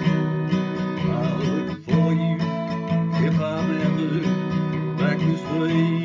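Acoustic guitar strummed in a steady country-folk rhythm, the strumming breaking off briefly just under two seconds in, with a man's voice coming in at moments.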